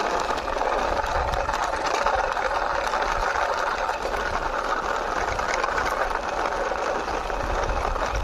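Toy backhoe pushed along by hand, its wheels rolling and rattling steadily over the surface.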